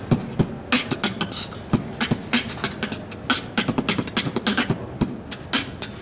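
Human beatboxing: a quick, rhythmic run of sharp mouth clicks and hissing hi-hat sounds with short low kick-drum thumps among them.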